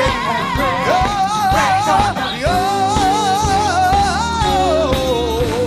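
Live gospel song: a voice holds long notes with wide vibrato over band accompaniment, sliding down to a lower note about four and a half seconds in.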